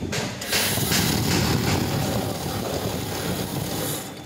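Currency counting machine feeding a bundle of banknotes through its rollers: a loud, fast whirring rush of paper that starts about half a second in and stops shortly before the end.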